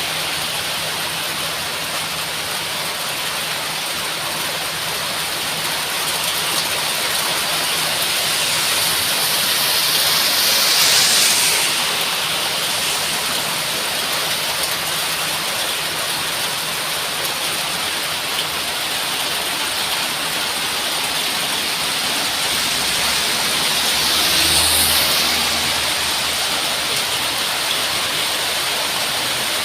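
Heavy rain falling as a steady hiss, swelling louder briefly twice: about eleven seconds in and again about twenty-five seconds in.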